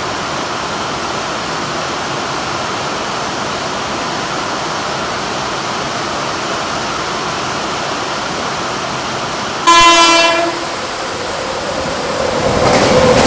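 Heavy rain falling steadily. About ten seconds in, a train horn gives one short, loud blast that cuts off sharply. Near the end, the growing rumble of the approaching train rises over the rain.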